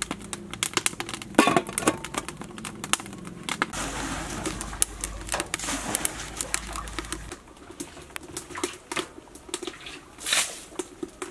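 A dove cooing in the background over many sharp, irregular clicks and crackles.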